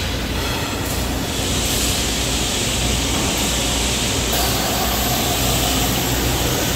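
Vacuum glass lifter running: a steady low hum under an even air hiss that grows louder about a second in.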